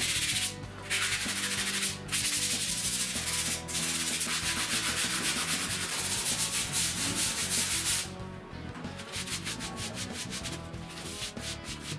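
Hand-sanding laminate strips with a sanding sponge in long, scratchy strokes with brief pauses. About eight seconds in it changes to a quieter run of quick short rubbing strokes, about six a second.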